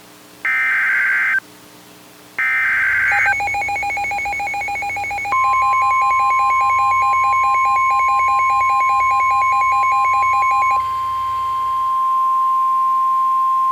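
Emergency Alert System header: warbling digital data bursts about a second long, sounding twice. About three seconds in, the harsh two-tone EAS attention signal starts, and a couple of seconds later a steady single-tone weather-radio alert joins it. Near eleven seconds the two-tone stops and the single tone keeps sounding.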